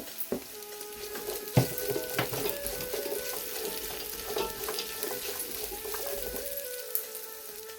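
Chunks of onion sizzling in hot oil in a pan while a spoon stirs them, knocking against the pan a few times, with soft background music.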